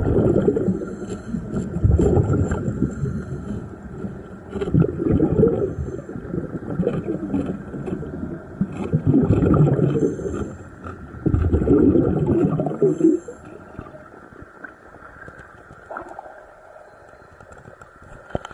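Diver breathing underwater: each exhale bubbles out with a gurgling rush, in surges every few seconds. The breaths die down about two-thirds of the way through.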